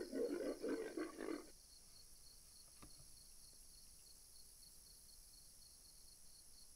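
Convergent Bullet electronic feral hog caller playing its recorded boar call, a rapid run of low grunts, switched off abruptly about a second and a half in, leaving near silence.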